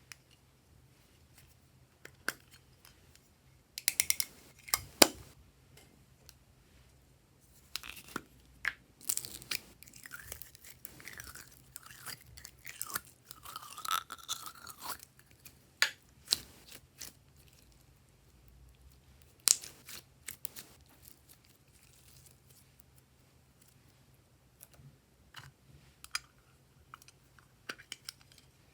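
Glossy slime being squeezed, folded and stretched by hand, with irregular crackling clicks and squishy pops, busiest in the middle.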